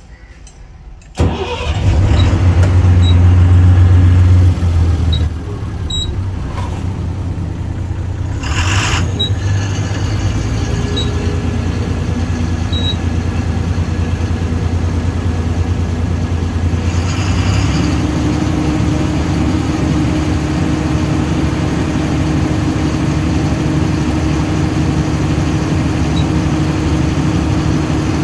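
Ashok Leyland BS4 diesel engine starting about a second in, running loud for a few seconds, then dropping back to a steady idle. A short hiss sounds about nine seconds in.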